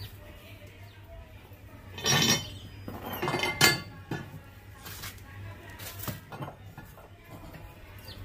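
Rusty iron weight plates and a threaded barbell bar clinking and scraping against each other as they are handled, with the loudest clanks about two seconds and three and a half seconds in and a few lighter knocks after.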